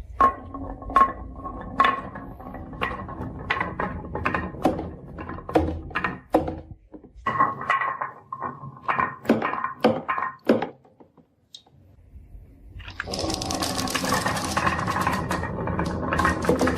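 Marbles clacking and rolling down a wooden marble run track, sharp irregular knocks with a ringing tone. After a short pause, about thirteen seconds in, many marbles rattle down together in a dense, continuous clatter.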